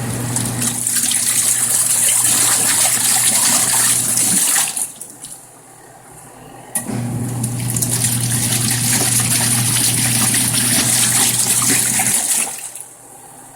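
Costway portable washing machine's wash motor humming as it churns water in the tub. It stops for about two seconds near the middle and again near the end, the pulsator working in stop-start runs of a wash cycle.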